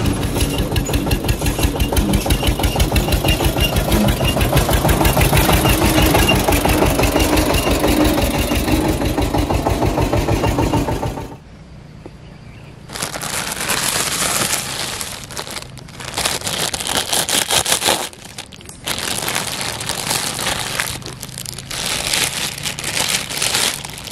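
A tractor engine runs steadily with a fast, even chug, then cuts off abruptly about eleven seconds in. From about thirteen seconds, a plastic bag crinkles in repeated bursts as a toy tractor is unwrapped.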